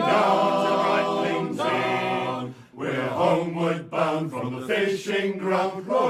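Male shanty group singing unaccompanied in harmony, holding a long chord at the end of the chorus that stops about two and a half seconds in. After a brief break the voices go on in shorter notes.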